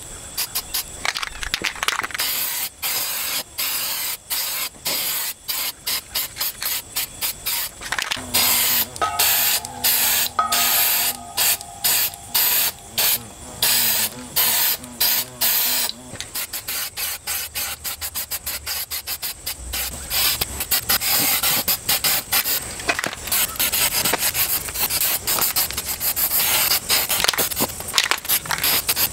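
Aerosol spray paint can hissing in many short, rapid on-off bursts as gloss red paint is sprayed onto the spokes of a wire wheel.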